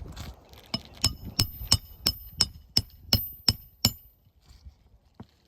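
A hand hammer driving a roofing nail into a shingle: about ten quick, ringing metal-on-metal strikes, about three a second, then one lighter tap near the end.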